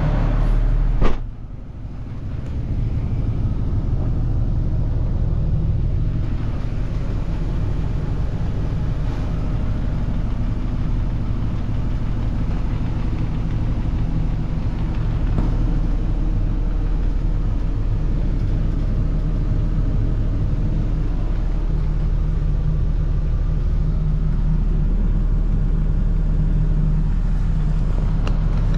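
2012 Ford F750's diesel engine idling steadily, heard from inside the cab, with a single thump about a second in.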